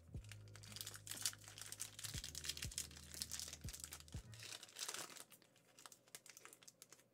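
Foil booster-pack wrapper crinkling and tearing as it is handled and opened, a dense run of short crackles that thins out after about five seconds.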